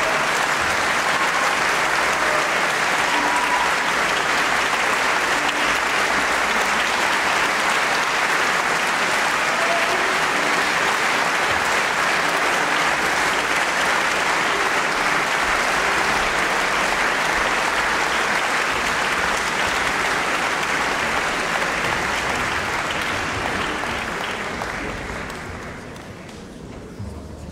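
Large concert-hall audience applauding steadily, the clapping fading out near the end.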